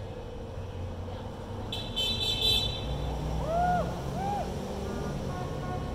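Road traffic at a city intersection with cars honking. The loudest moment is a quick run of high beeps about two seconds in, followed by two short rising-and-falling tones and a faint steady horn tone near the end.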